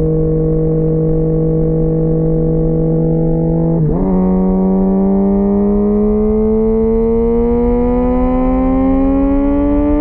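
2004 Kawasaki ZX-10R inline-four running through a full Sato titanium exhaust while riding. It holds a steady pitch, dips sharply for a moment about four seconds in, then climbs steadily in pitch as the bike accelerates.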